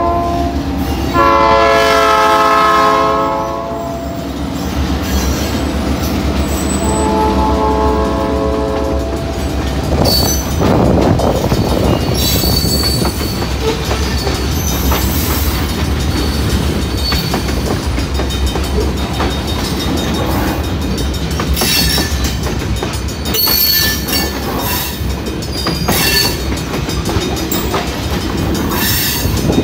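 SRY freight train: the locomotive's horn sounds a long blast about a second in and a shorter, weaker one about seven seconds in. Then black propane tank cars roll past, with the steady rumble and rhythmic clickety-clack of wheels over rail joints and a road crossing.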